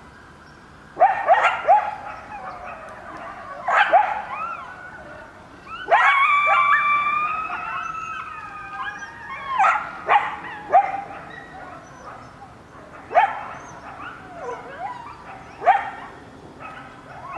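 A coyote family calling in chorus, set off by sirens. Short yips and barks come in scattered bursts, and a longer group howl of several overlapping voices starts about six seconds in.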